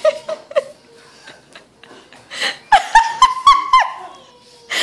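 People laughing, then several short high-pitched shrieks in quick succession about three seconds in.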